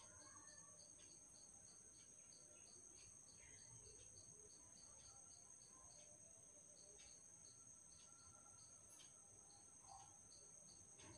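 Near silence with faint insect chirping: a steady high trill and short, even chirps about three a second.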